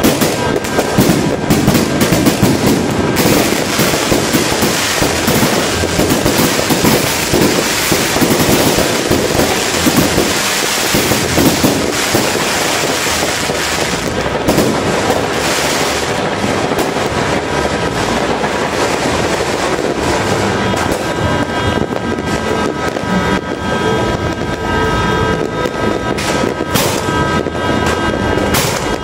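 Fireworks and firecrackers going off in a dense, unbroken crackle packed with sharp bangs.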